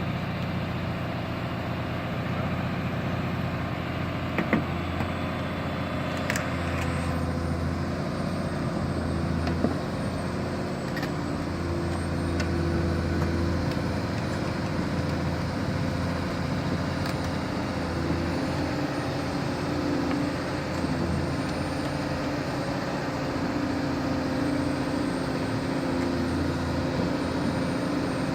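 Caterpillar 320D hydraulic excavator's diesel engine running steadily under working load, its note strengthening and easing as the hydraulics work, with a few short sharp knocks in the first dozen seconds.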